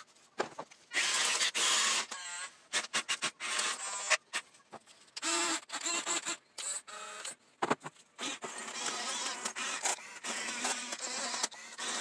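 Small electric gear motors of 1/24 scale RC construction models (excavator, articulated dump truck and bulldozer) whining in short stop-start bursts as the machines are driven and their arms and buckets worked.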